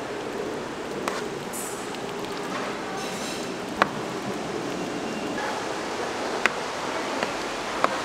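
Oil sizzling steadily in a deep fryer, with a few sharp clicks of a utensil against metal.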